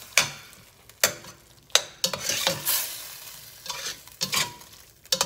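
Metal slotted spatula stirring diced chicken, sauce and melting cheese in a stainless steel pot: wet scraping with irregular sharp clinks as the spatula hits the pot's sides and bottom.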